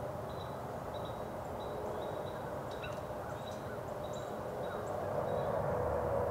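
Outdoor morning ambience with birds calling: one short high call repeats about twice a second, with a few other scattered chirps, over a steady low hum that swells near the end.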